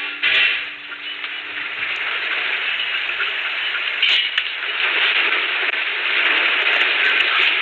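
Harsh, rain-like hiss and crackle picked up by a security camera's microphone, growing steadily louder as the earthquake shakes the camera, with a brief louder burst about four seconds in.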